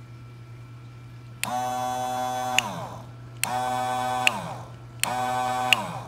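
Small 12-volt Seaflo bilge pump motor switched on and off three times with the momentary manual position of its rocker switch, running out of water for about a second each time with a steady whine, then winding down in falling pitch after the switch clicks off.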